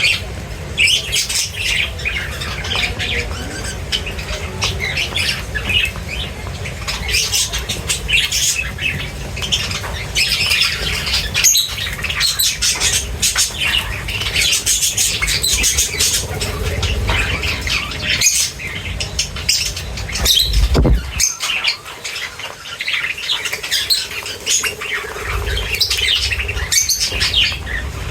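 A flock of birds chirping and squawking constantly while feeding, with many short, overlapping high calls. A low rumble runs underneath, and there is a single thump about twenty seconds in.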